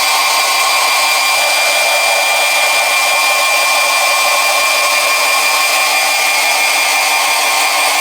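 A steady, unchanging whir with several fixed high whining tones, as from a small electric motor running continuously.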